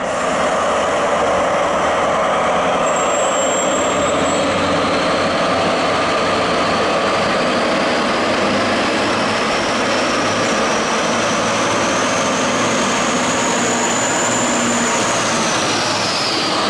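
Train hauled by a pair of DB class 218 diesel locomotives pulling away: steady, loud engine and rail noise with a whine that climbs slowly in pitch for about fifteen seconds, then drops near the end.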